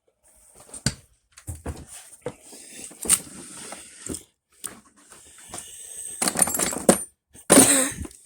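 Small hard objects clattering and rattling with knocks and scrapes as the contents of an old camper trailer are handled and rummaged through, likely a drawer of old cell phones being pulled open. The loudest rattle comes near the end.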